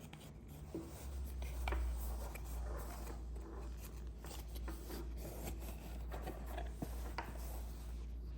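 Small clicks, taps and rubbing as camera-mount parts are handled, over a low steady hum that starts about a second in.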